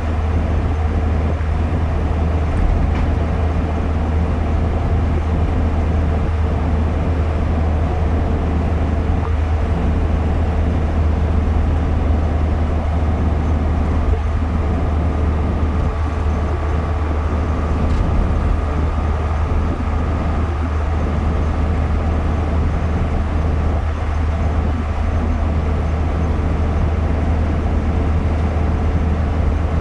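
Cabin noise of a car driving at steady highway speed: a continuous low engine and road drone with a faint steady hum above it.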